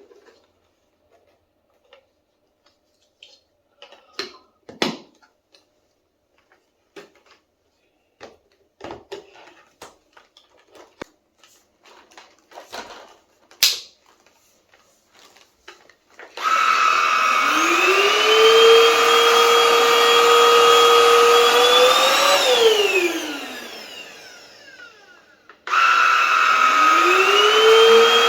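Plastic clicks and knocks as the parts of a cordless stick vacuum cleaner are fitted together. About halfway through, its motor is switched on: a whine rises in pitch to a steady high run, winds down and fades after about six seconds, then is switched on again near the end.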